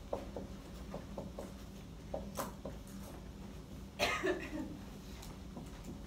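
Dry-erase marker writing on a whiteboard: a string of short, light taps and strokes over a steady low hum. Someone coughs once, about four seconds in.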